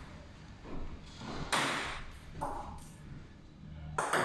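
A lull between table tennis rallies in a large hall: a few scattered knocks and taps, with a sudden louder knock near the end.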